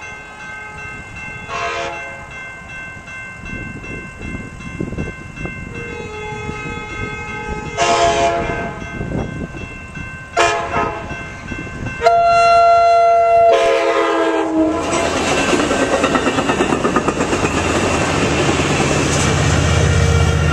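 Passenger train's K5LA chime horn sounding for the grade crossing: a short toot, two more blasts, then a long final blast. Then the train passes close with a rushing roar and wheel clatter on the rails.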